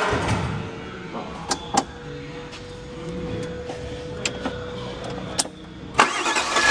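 Scattered clicks and knocks, then about six seconds in the forklift's Volkswagen engine comes in suddenly and runs with a rapid, even firing rhythm.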